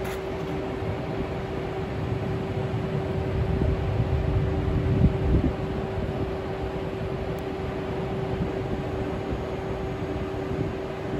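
Newag Griffin EU160 electric locomotive standing at the platform, its equipment giving a steady hum with one clear steady tone. A low rumble swells about halfway through.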